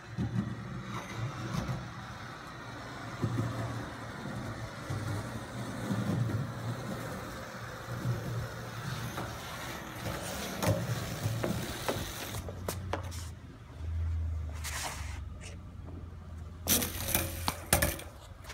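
Skateboard wheels rolling on concrete with a steady low rumble. Sharp clacks of the board come around the middle and in a quick cluster near the end.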